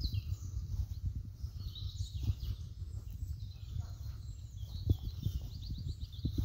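Footsteps in grass as someone walks slowly, under a steady low wind rumble on the microphone. Short high bird chirps come through, with a quick run of them near the end.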